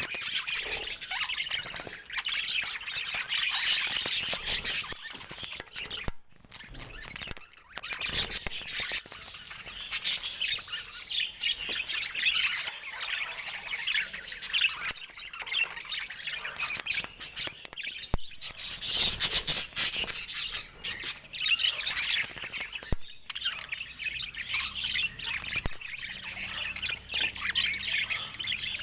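Budgerigars chattering and warbling continuously, with squawks mixed into a dense, fast stream of chirps. The stream breaks briefly about six and seven and a half seconds in.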